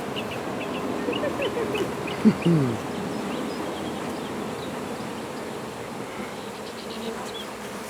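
A swarm of Italian honey bees buzzing with a steady hum, the bees calm as they are being hived.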